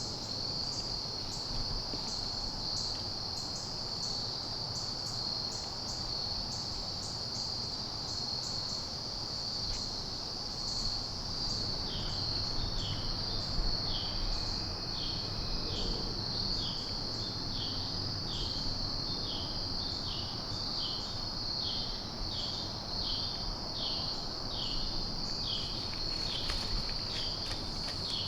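Evening insect chorus of crickets: one continuous high trill with a second insect pulsing rapidly above it. About halfway through, a third starts a repeated chirp roughly once a second.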